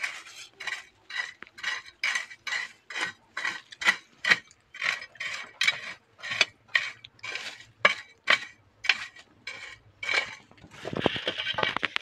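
A machete blade repeatedly stabbing and scraping into gritty soil, stones and dry twigs at a hole under a rock, about two strokes a second. Near the end comes a longer rustling scrape as a hand sweeps through the loose dirt and twigs.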